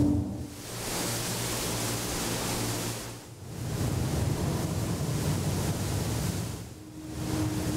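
Performance soundtrack of swelling noise, like surf, rising and falling in slow waves about every three and a half seconds over a low hum.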